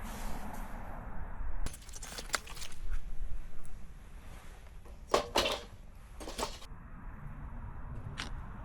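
Three bursts of sharp clinking and clattering, the middle one loudest, with a single click near the end.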